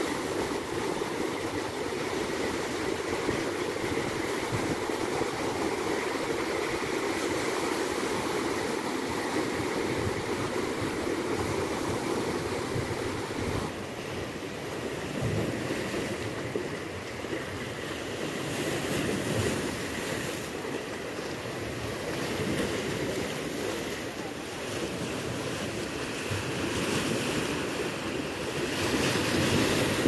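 Black Sea surf washing onto the shore, a steady rush of small waves with wind on the microphone, and a louder wave breaking near the end.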